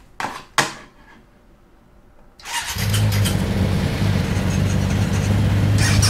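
Two short clicks, then about two and a half seconds in a recorded motorcycle engine starts up and keeps running with a steady low note: the opening of a music track built from motorbike sound samples.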